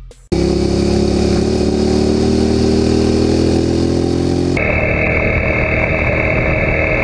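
Suzuki SV650's V-twin engine running under way, its pitch rising slowly as the bike gathers speed. About four and a half seconds in, the sound changes abruptly to a rougher, noisier engine sound with a steady high hiss over it.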